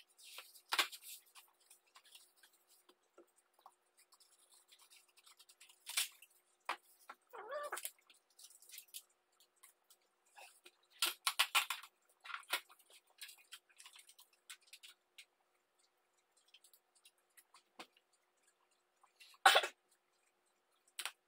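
Intermittent scraping, rustling and tapping of hand work on a table: a craft knife cutting through cardboard along a metal ruler, the cardboard being handled, and glass sheets and aluminium tape being handled. A denser run of rasping scrapes comes about halfway through, and a sharp, louder one near the end.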